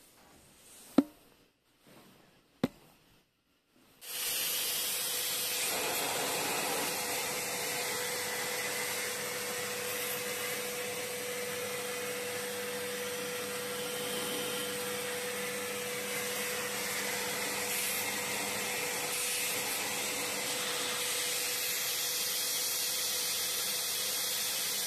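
Vacuum cleaner running steadily, its hose fitted with a 3D-printed T-slot nozzle adaptor to suck out a milling machine table's T-slot: an even hiss with a steady whine. It starts about four seconds in, after two faint clicks.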